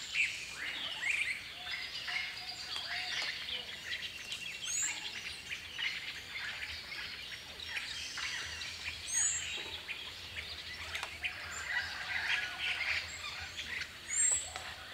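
A chorus of songbirds chirping and singing continuously, with a few short, high whistled calls standing out about five, nine and fourteen seconds in, over a faint steady hiss.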